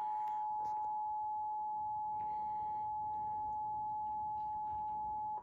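Emergency Alert System attention signal from a DASDEC II cable alert unit: a steady two-tone alert that cuts off abruptly at the end, announcing a severe thunderstorm warning.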